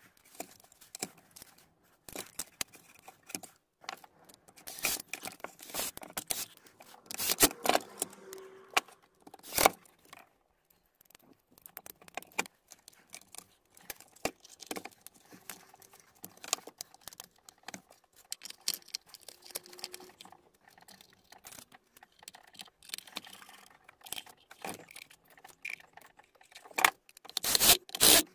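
Irregular clicks, taps and scrapes of small metal and plastic parts and hand tools being handled as a cordless finish nailer is reassembled, with a few louder knocks.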